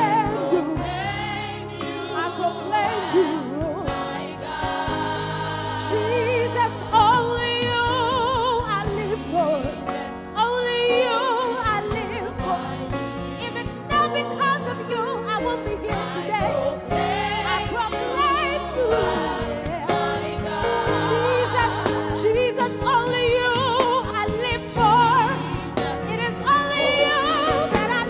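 Live gospel worship music: voices singing with wavering vibrato and melodic runs over steady band backing with a regular drum beat.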